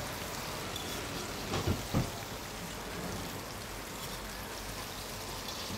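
Breaded chicken pieces deep-frying in a wok of hot oil, sizzling steadily in the first, part-cooking fry. Two brief louder sounds come about one and a half and two seconds in.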